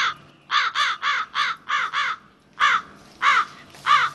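Crow cawing: about ten harsh caws, one, then a quick run of six, then three spaced out.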